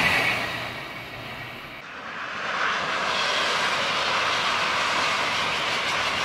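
TGV high-speed train passing at speed: a steady rushing of air and running gear with no distinct tones. The sound dies away over the first second or two, then, after a cut, a second pass swells up about two and a half seconds in and holds steady.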